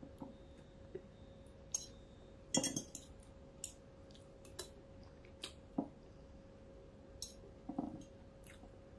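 Spoon and fork clinking against a plate while eating: about a dozen separate light clinks, the loudest quick cluster about two and a half seconds in.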